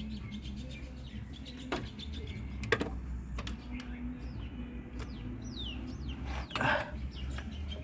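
A few sharp clicks of hand tools, a socket and extension being fitted and worked, with small birds chirping in the background, including a quick run of falling chirps about two-thirds of the way in.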